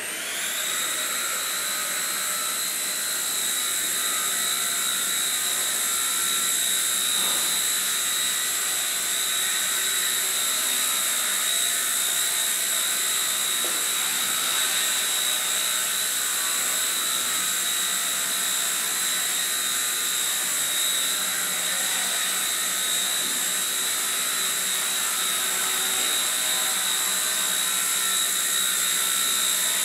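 Skyartec WASP100 Nano CP micro RC helicopter's electric motor and rotors running with a high-pitched whine, rising in pitch in the first second as it spools up, then holding steady in flight.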